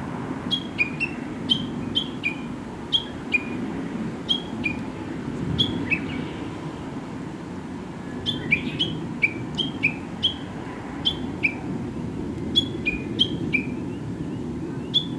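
A songbird calling in a long series of short, sharp notes that drop in pitch, a higher and a lower note alternating two to three times a second, with a pause of about two seconds midway. A steady low rumble runs underneath.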